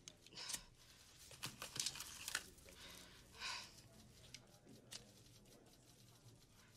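Faint rustling and a few small clicks as a cigarette lighter is handled and lit.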